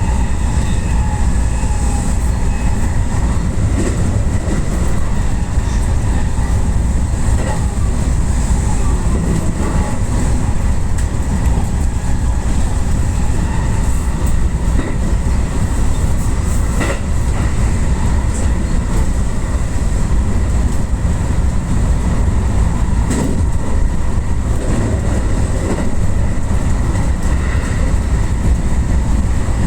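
JR West Yamatoji Line rapid electric train running at speed, heard from inside the front car: a steady low rumble with scattered sharp clicks of the wheels over rail joints.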